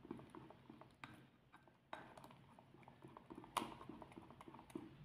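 Faint, scattered soft taps and scrapes of a silicone spatula stirring and folding a thick cream in a glass bowl, one tap a little louder partway through.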